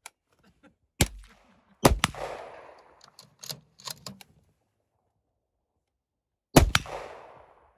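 Rifle shots: three sharp cracks, one about a second in, one just after it and one near the end, each trailing off in a long echo, with a few light clicks between them.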